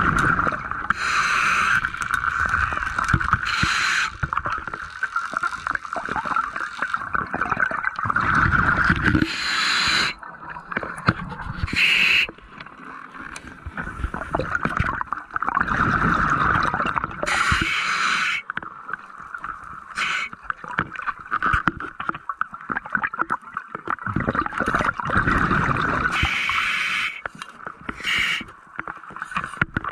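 Muffled underwater bubbling and water rush picked up through a camera housing, coming in surges a few seconds long with quieter gaps between, plus brief crackles.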